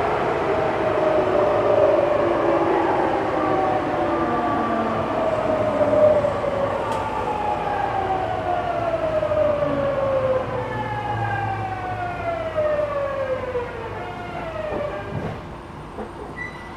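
Tokyu 9000 series electric train heard from inside the car: its VVVF inverter whine, several tones together, falls steadily in pitch as the train brakes, and the running noise fades with it. The whine dies away near the end as the train slows to a stop.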